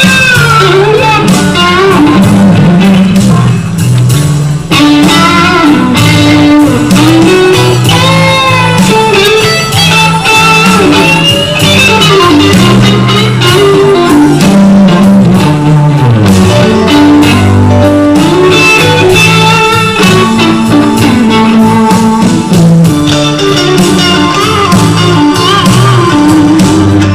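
Live blues-rock jam: an electric guitar plays a lead full of string bends over a bass line, recorded very loud.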